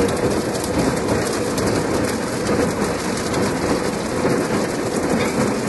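Automatic car wash heard from inside the car: water spray and spinning cloth brushes hitting the roof, body and windows, a dense, steady rain-like rush.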